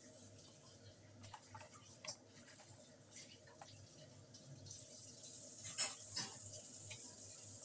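Quiet eating sounds from a mouthful of noodle soup: faint wet mouth clicks while chewing, then two louder slurps of noodles about six seconds in.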